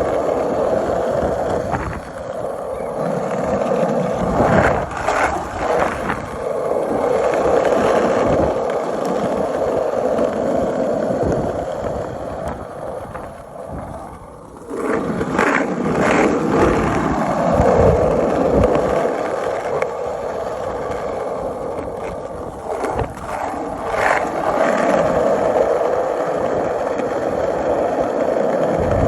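Skateboard wheels rolling over pavement: a steady rolling rumble with a few sharp knocks. The rumble fades down about halfway through, then comes back loud.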